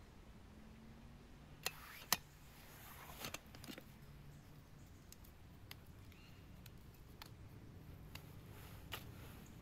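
Scattered sharp clicks and light knocks of small hard objects being handled, about nine in all, the loudest two close together about two seconds in, over a faint steady background.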